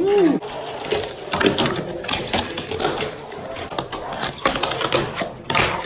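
Continuous rapid mechanical clicking and rattling, with a short sliding squeal right at the start.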